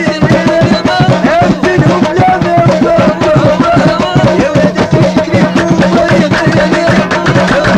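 Moroccan Hrizi folk music (qsara) played live: a wavering, sliding melody line over fast, steady hand-drum strokes.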